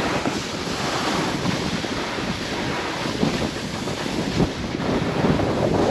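Wind buffeting the microphone over the steady rushing hiss of a snowboard sliding over slushy spring snow.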